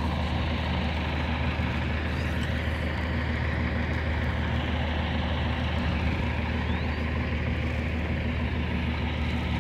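An engine or motor running steadily, a constant low hum under a broad hiss, getting louder right at the start.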